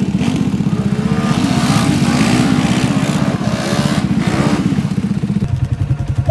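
Polaris ACE single-seat side-by-side's engine running as it is driven in circles on dirt. The note wavers up and down with the throttle, then drops to a lower note near the end.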